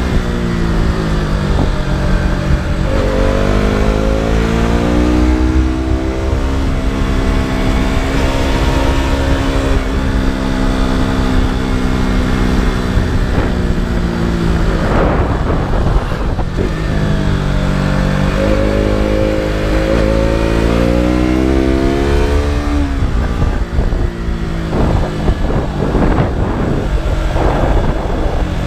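KTM RC 200's single-cylinder four-stroke engine and exhaust under riding load. The pitch drops early on as it slows, climbs as it pulls out again and holds steady. Around the middle and again near the end it drops and climbs once more, as through a series of bends.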